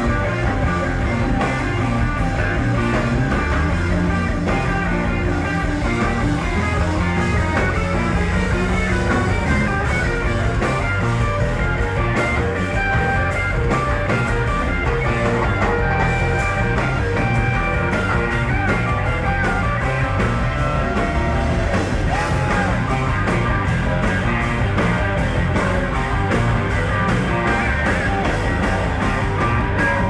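Rock band playing live: an instrumental passage with electric guitar lead lines over bass, drums and keyboards, loud and continuous, recorded through a phone's microphone.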